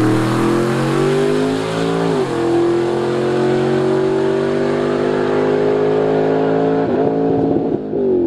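1971 Chevelle's naturally aspirated 355 small-block Chevy V8, with a solid roller cam, at full throttle on a drag-strip pass. The note climbs through the gears, with a gear change about two seconds in and another near seven seconds, then falls in pitch near the end.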